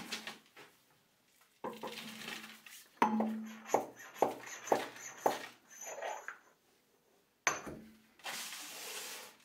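Steel press tooling being handled and set down on the steel bed of a hydraulic press: scattered metal clanks and clinks with a short ring, including a run of about five, roughly two a second, in the middle.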